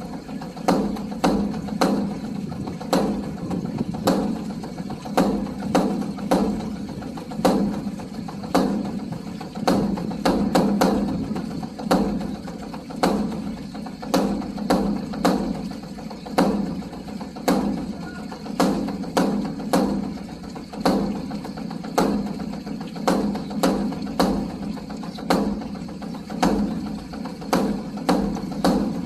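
Beopgo, the large barrel-shaped Korean Buddhist Dharma drum, played with two sticks in a continuous rhythm of strikes, some sharper and woody, over the drum's sustained low ring.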